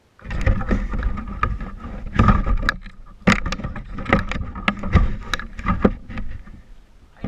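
Traxxas Slash 4x4 RC short-course truck running over rough ground: a steady rumble with many sharp knocks and clatters.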